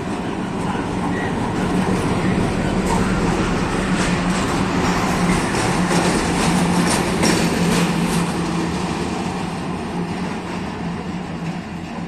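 Two MÁV M41 (class 418) diesel-hydraulic locomotives passing close by, their diesel engines running with a steady low drone that swells as they pass and then fades. A run of sharp clicks from the wheels comes in the middle.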